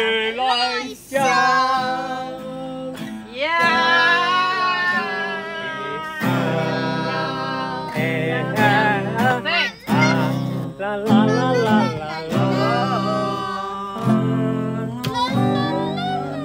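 A song sung to an acoustic guitar, the voice wavering on long held notes over strummed chords.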